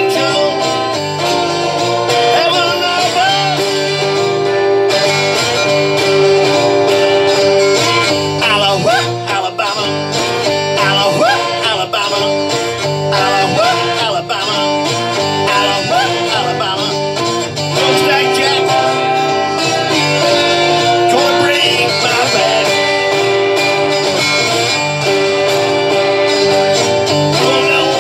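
Live solo acoustic blues: a man singing while playing an acoustic guitar.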